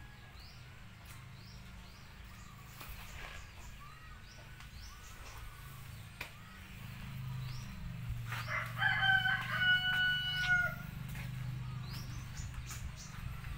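A rooster crows once, a call of about two seconds some eight and a half seconds in. Under it run repeated short high chirps and a low steady hum.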